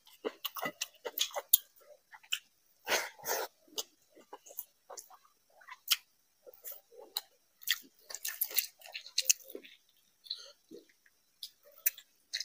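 Close-miked eating by hand of rice and fish curry: irregular wet chewing and mouth clicks, with one longer, louder noisy sound about three seconds in.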